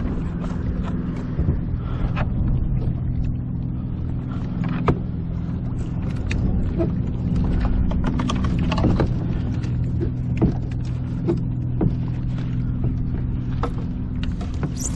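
A steady low mechanical hum, with scattered short knocks and splashes from a large gaffed African pompano in the water against the side of a plastic fishing kayak.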